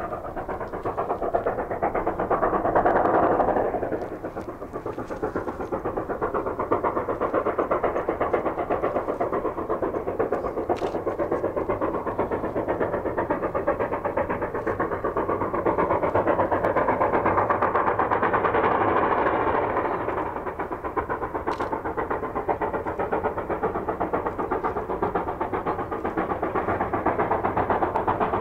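Steam locomotive working hard, its exhaust a continuous rapid chuffing. It swells louder about three seconds in and again for a few seconds past the middle, then eases back.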